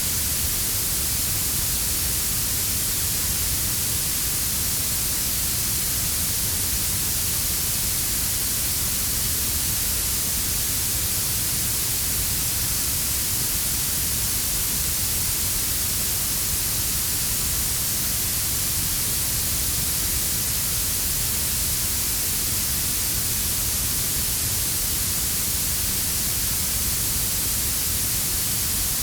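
Steady synthetic blue noise: an even, unchanging hiss weighted toward the highest frequencies, blended with a quieter brown-noise rumble underneath.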